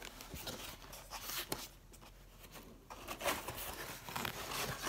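Cardboard shipping box being handled and opened, its flaps scraping, rubbing and tapping, with denser rustling from about three seconds in.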